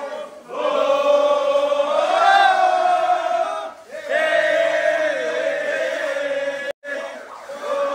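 A group of men chanting in unison in long held notes, in three phrases with brief pauses between them.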